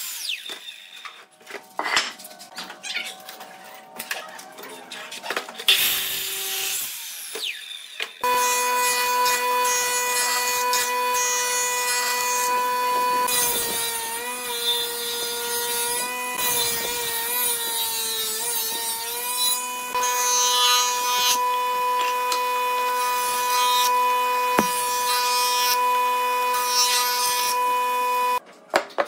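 A sliding miter saw makes a short cut about six seconds in, among knocks of wood being handled. Then a jointer starts up and runs with a steady whine; its pitch sags and a planing noise joins in for about six seconds as a pine block is pushed over the cutterhead, and it stops near the end.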